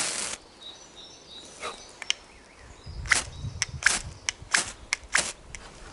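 A series of short, sharp scrapes and clicks, about a dozen spread unevenly through several seconds, with a low rumble around three seconds in.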